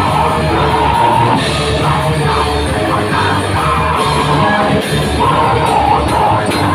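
Loud live metal band playing: electric guitars, bass, drum kit and keyboard, with a vocalist singing over them.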